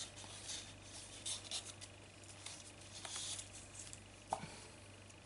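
Sheets of cardstock being handled, turned and shuffled: faint scattered rustles of paper, with one light tap about four seconds in.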